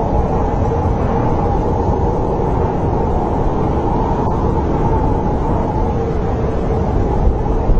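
Snowstorm wind blowing steadily, a deep rumble with a faint wavering whistle held over it.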